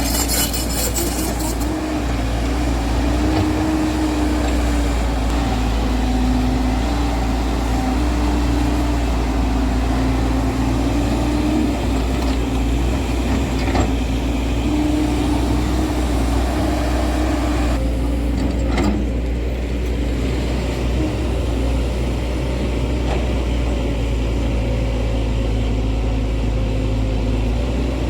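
Diesel engine of a JCB JS140 tracked excavator running steadily while working, with a droning tone that rises and falls slightly.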